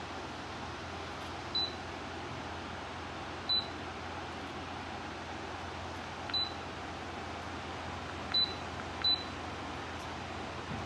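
Five short, high beeps from a smart tower fan's control panel, the last two close together near the end, over a steady background hiss.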